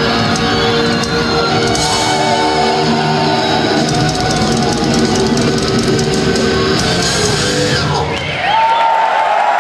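Thrash metal band playing live, with distorted electric guitars and a drum kit. The song ends about eight seconds in and the crowd starts cheering and whistling.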